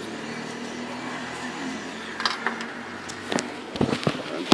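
A small car engine running at low revs as the car manoeuvres to park. From about two seconds in come sharp knocks and clicks of a phone being handled and swung about, the loudest near the end.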